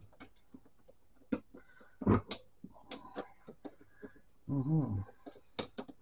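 Small metal parts of a Smith-Corona electric typewriter clicking and rattling as the mechanism is worked apart by hand, with a knock about two seconds in.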